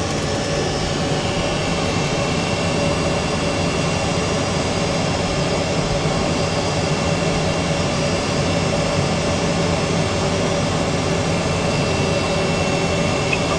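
Boeing 747 jet engines running at low taxi thrust, heard inside the cockpit as a steady noise with a thin, high whine held over it.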